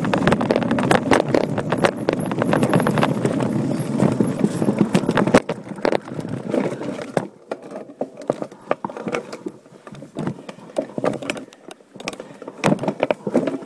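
Voodoo Bizango mountain bike rattling and clattering over a rocky trail. Dense knocking over a steady rolling rumble gives way, about six seconds in, to quieter, scattered clicks and knocks.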